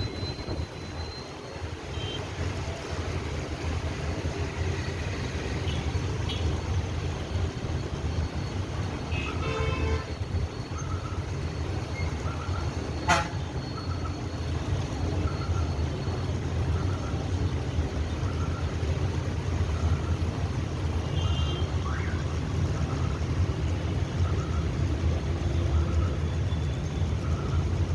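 Traffic on a busy road: a steady low rumble of engines and tyres, with vehicle horns tooting, including a quick cluster of toots about ten seconds in. A sharp clack about thirteen seconds in is the loudest moment, and from about ten seconds in a faint short beep repeats roughly every second.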